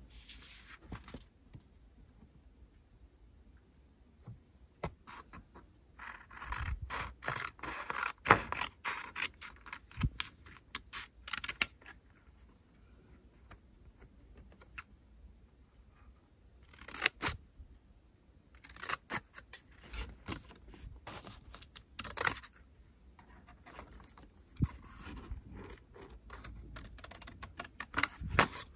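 Scissors snipping through a paper-backed waterslide decal sheet, with the sheet crinkling and rustling as it is handled. The cutting comes in several bursts of sharp snips with quiet pauses between.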